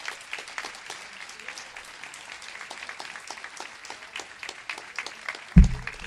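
An audience of about a hundred people applauding, with many hands clapping at an uneven rate. A sudden low thump near the end, louder than the clapping.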